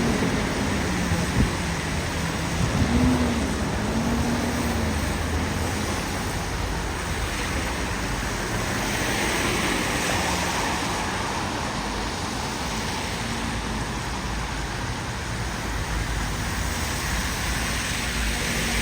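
Busy street traffic with a bus passing: an engine note rises and falls a few times in the first five seconds, then steady road noise with a vehicle swelling past about ten seconds in.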